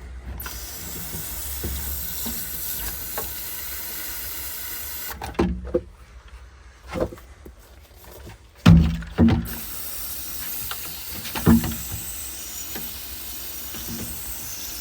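Sprayer hissing steadily as liquid is sprayed into a Glow-worm Flexicom boiler's heat exchanger to flush it out. The spray stops for a few seconds midway, with a few knocks and thumps of handling, then starts again.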